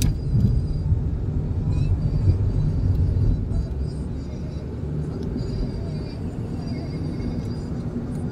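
A moving car's steady low engine and road rumble, heard inside the cabin.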